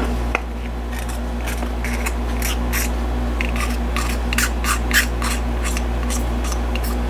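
Hobby knife blade scraping along the edge of a 3D-printed plastic part in short repeated strokes, a few a second, trimming off the lip left by the first layer on the print bed. A steady low hum runs underneath.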